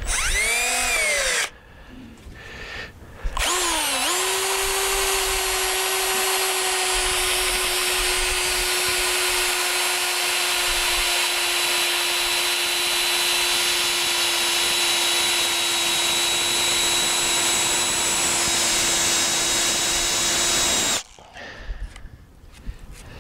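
Handheld power drill boring into the joint where a diagonal wooden brace meets a fence post. The trigger is feathered at first, the whine speeding up and slowing twice, then the drill runs at a steady speed for about seventeen seconds, the pitch sagging only slightly, and stops abruptly.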